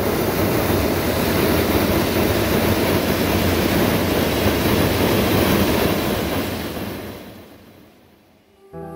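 Hot air balloon's propane burner firing a long, loud, steady blast, heating the air inside the envelope during inflation. The blast fades out over the last few seconds.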